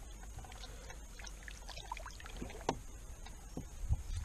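Small splashes and drips of water as a bass held by the lip is lowered into weedy swamp water beside a kayak to be released, with a couple of low thumps near the end.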